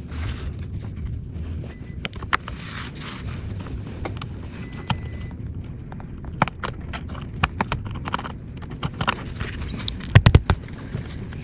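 Irregular small clicks and taps of hand tools and parts handled during an iPhone repair, over a low steady rumble, with a quick cluster of louder knocks near the end.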